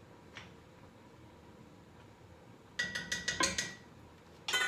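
Metal pots and pans being handled on a stovetop: a rapid run of clanks and clinks with a brief metallic ring about three seconds in, and another sharp clank near the end.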